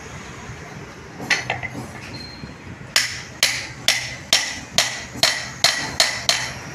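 Hand hammer striking a steel part on an iron anvil block, metal on metal. There are a few taps about a second in, then a steady run of about nine ringing blows, a little over two a second.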